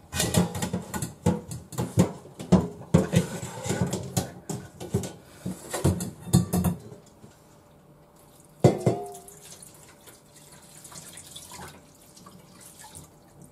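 Water splashing and draining as cooked noodles are rinsed by hand in a mesh strainer set in a stainless steel bowl, with frequent clinks of metal. About nine seconds in comes a single clank of a stainless bowl that rings briefly, followed by quieter dripping and pouring.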